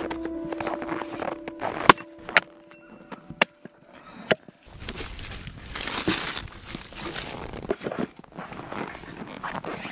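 An axe chopping frozen meat on a wooden stump: four sharp strikes between about two and four seconds in, then several seconds of dense crunching noise. Music fades out during the first two seconds.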